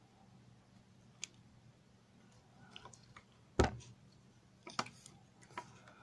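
Scattered small clicks and scrapes of a utility-knife blade being worked along the glue under an AMD Athlon II CPU's metal heat spreader, with fingers shifting their grip on the chip. One sharp click a little past halfway is the loudest.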